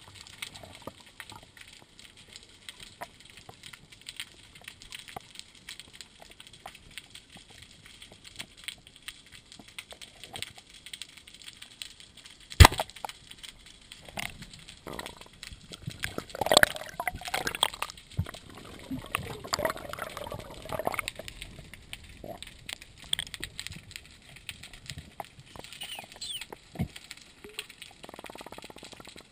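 Underwater crackling and clicking of the sea, heard through a GoPro housing. About halfway through comes a single loud, sharp crack as a spear is fired at a fish. A few seconds later there are several seconds of muffled, wavering sounds.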